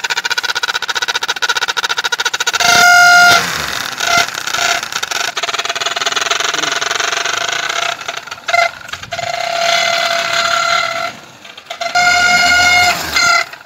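Motorcycle engine running with a plastic toy horn fitted into the silencer outlet. The exhaust blows through the horn and gives a steady honking tone that sounds on and off several times over the rapid popping of the exhaust.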